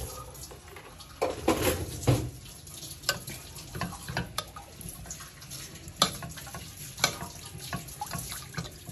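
Irregular light knocks and clinks of a spoon against a pot or bowl as custard ingredients are spooned in, over a low, even background noise.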